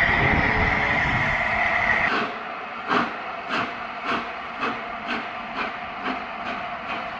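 Steam locomotive hissing steadily, then, after a cut about two seconds in, a steam locomotive's exhaust chuffing at about two beats a second, the beats quickening slightly.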